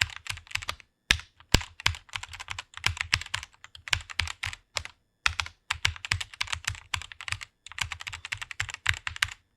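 Fast typing on a computer keyboard: runs of rapid keystroke clicks, broken by a few short pauses.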